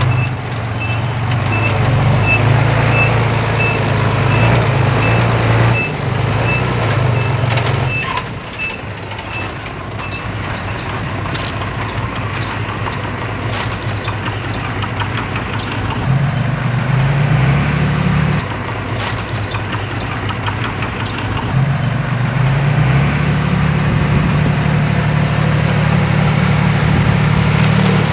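Dump truck's diesel engine running steadily, with a reversing alarm beeping about twice a second for the first ten seconds. The engine note shifts a few times, with a few scattered knocks.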